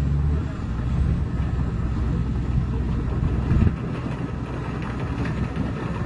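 Komatsu D65PX crawler bulldozer's diesel engine running steadily as the dozer works with its blade down, with a short louder surge about three and a half seconds in.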